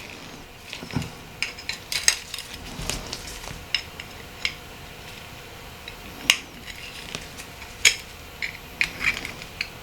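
Irregular light clicks and taps of small metal and plastic parts of a Nokia 8910i and a hand tool being handled during disassembly, with two sharper clicks about six and eight seconds in.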